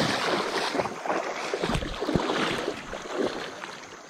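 River water splashing and sloshing, with a few low knocks mixed in, fading away near the end.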